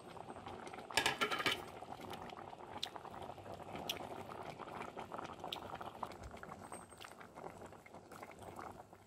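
Pot of Isan cassia-leaf curry (kaeng khi lek) at a rolling boil, bubbling steadily with scattered small pops, as fresh greens are tipped in from a plate. A brief louder noise comes about a second in.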